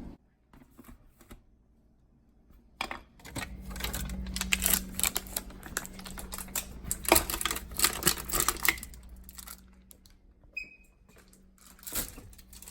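Rapid, dense clicking and clattering of small hard objects being handled, over a low steady hum, with a short high beep near the end.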